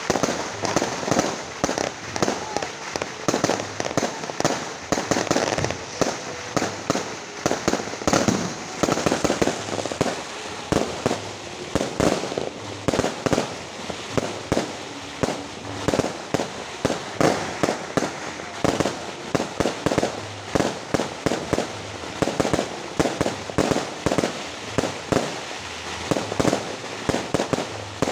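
Aerial fireworks bursting overhead in a continuous barrage: many sharp bangs every second, packed close together with no break.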